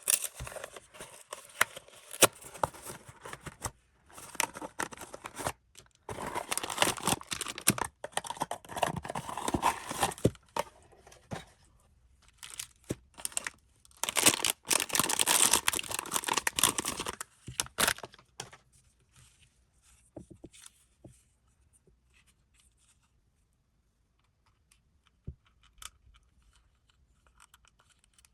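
Blind-box packaging being torn open and crinkled by hand, in three long stretches of tearing and rustling with short pauses between. After them come only a few light clicks and rustles.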